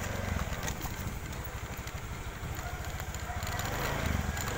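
Motorcycle engine running steadily while the bike is ridden, a fast even low rumble.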